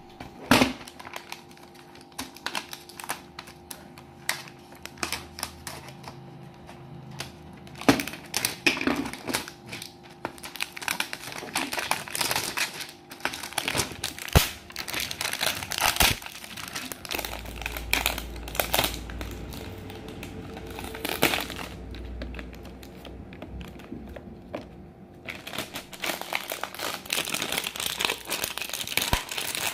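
Plastic shrink-wrap crinkling and rustling as it is cut with scissors and pulled off a wooden craft kit, with scattered sharp clicks from handling.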